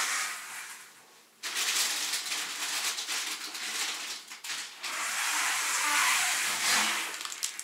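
Plastic crinkling and rustling as groceries are handled and taken out of shopping bags. It fades about a second in and starts again abruptly, with a short lull midway.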